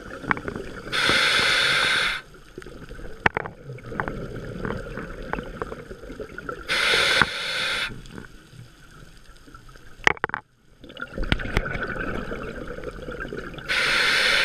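Scuba diver breathing through a regulator underwater: a softer hiss on each inhale, then a loud rush of exhaust bubbles on each exhale, three exhales about six seconds apart. Scattered sharp clicks throughout.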